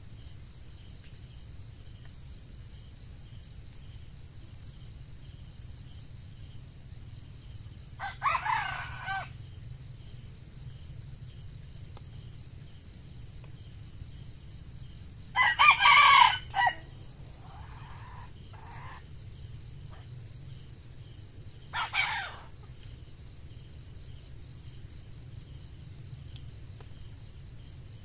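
Red junglefowl rooster crowing: three short crows several seconds apart, the middle one the loudest and followed by fainter calling. A steady high-pitched drone runs underneath.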